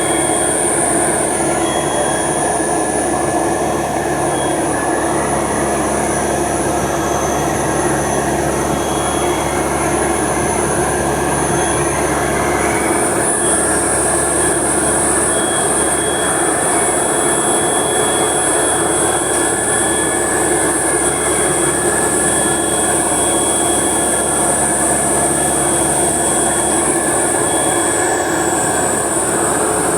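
Heavy machinery running steadily: a loud, constant mechanical din with high-pitched whining tones over it.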